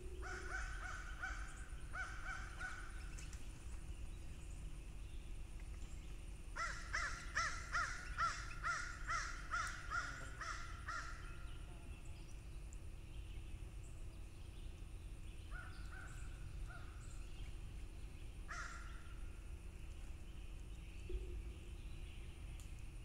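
Crows cawing out of sight: a few caws at the start, a fast run of about ten caws in the middle, then a few scattered caws near the end.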